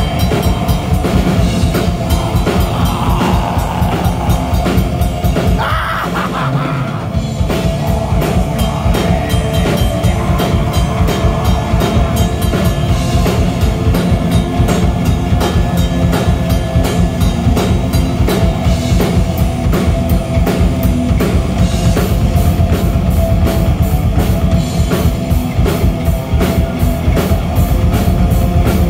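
Black metal band playing live: distorted electric guitars over fast, relentless drumming. The deep low end drops out for about a second around six seconds in, then the full band comes back in.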